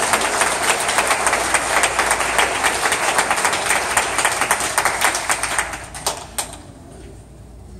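A large audience applauding. The clapping thins out and dies away about six seconds in.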